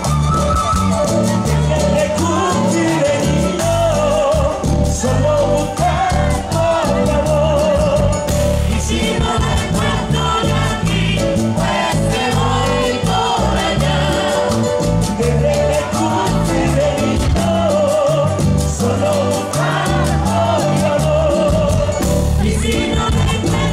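A live Latin dance band playing with a steady beat, bass and drums, with sung vocals.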